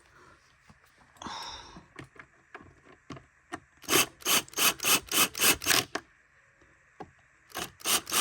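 Screws being driven by hand into the plastic housing of a Bissell Powerforce Turbo upright vacuum: a run of rasping, creaking strokes, about three a second, as the screwdriver is turned. After a pause a few more strokes come near the end.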